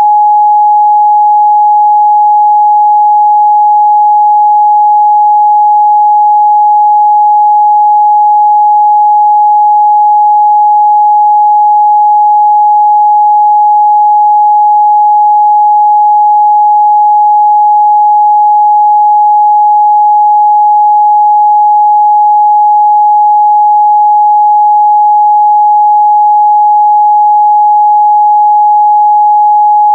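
A steady, loud 838 Hz pure sine tone, unbroken and unchanging in pitch and level: an audio test tone for checking speaker and headphone response.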